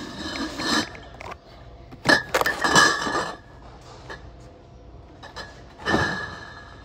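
Cardboard cases of glass beer bottles being lifted and set down on a pallet stack, the bottles clinking inside the cases. The clinking comes in three bursts, the loudest about two seconds in and a shorter one near the end.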